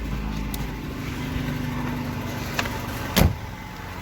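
VAZ 2115's four-cylinder engine idling while still cold, just started on fresh oil after an oil change. A single sharp knock sounds a little after three seconds in, the loudest thing heard.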